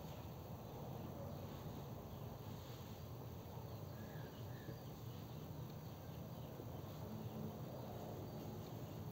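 Quiet background: a steady low hum with faint chirping of insects.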